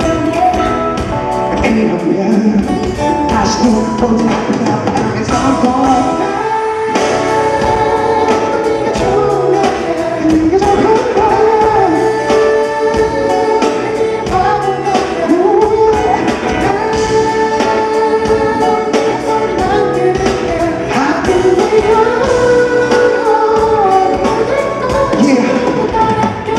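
Live pop music from a band, with a singer carrying the melody over a steady beat.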